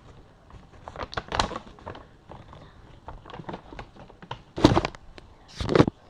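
Irregular handling noises, as of a package being unwrapped: crackles and soft clicks, with two louder bursts near the end.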